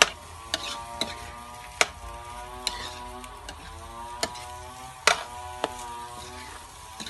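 A spatula clinking and scraping against a metal wok as egg and pork are stir-fried, with sharp clinks roughly once a second over a light sizzle.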